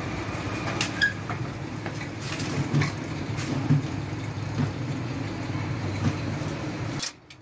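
Steady low mechanical hum with a few light metallic clicks and taps, cut off abruptly near the end.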